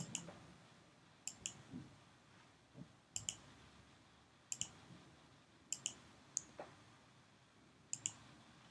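Faint computer mouse button clicks, mostly in quick pairs, about one every second or so.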